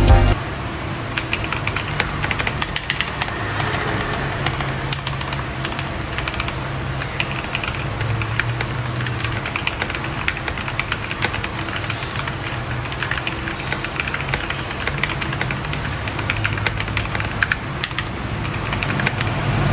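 Fast, continuous typing on a Fuhlen H108s full-size mechanical keyboard with an aluminium plate and Cherry-profile keycaps: a dense, irregular stream of key clicks and clacks.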